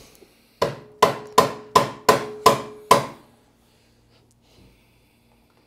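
Hammer tapping a bolt into a motorcycle foot peg lowering bracket: seven light, even blows about three a second, each with a short metallic ring.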